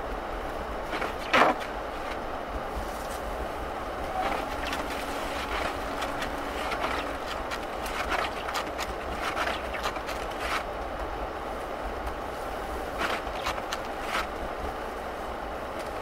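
Steady road and tyre noise inside a V8 Mercury Grand Marquis driving on packed snow, with a low rumble and scattered short clicks and knocks. A louder knock comes about a second and a half in.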